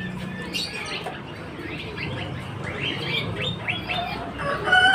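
Caged birds at a bird market chirping, many short falling chirps in a busy chorus. Near the end a rooster starts a long, steady crow.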